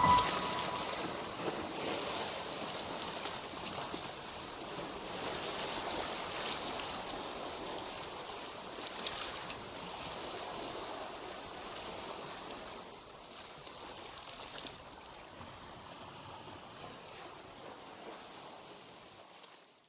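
Ocean surf washing against rocks, a steady rushing hiss that slowly fades out and stops just before the end.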